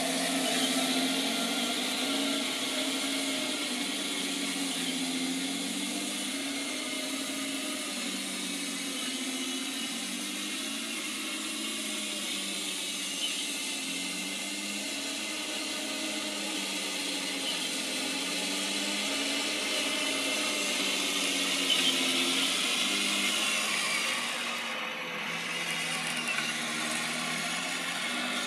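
Radio-controlled Tiger 1 model tank driving: the Clark TK24S board's simulated tank-engine sound from its speaker, pitch rising and falling with the throttle, mixed with the whine of the electric drive motors and gearboxes. A higher whine climbs in pitch near the end.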